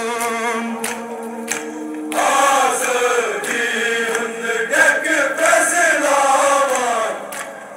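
Crowd of men chanting a Kashmiri noha, a Muharram mourning lament, in unison. A single held note for the first two seconds, then many voices sing together, fading near the end.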